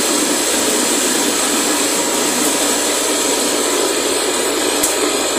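Cotton candy machine running during its warm-up, its spinner head and gas flame heating: a loud, steady rushing whir.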